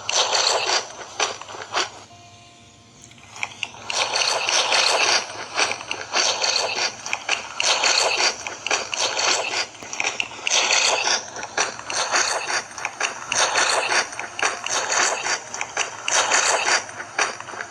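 Close-miked wet chewing and slurping of food, in quick, dense smacking mouthfuls with a short pause about two seconds in.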